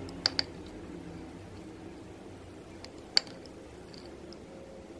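A small plastic cosmetic sachet being handled and squeezed open by hand, giving a few sharp clicks: two close together just after the start and a louder one about three seconds in. Underneath is a steady low hum.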